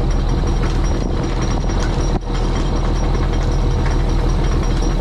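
Fishing trawler's engine running steadily, a loud, even engine noise with a brief dip in level about two seconds in.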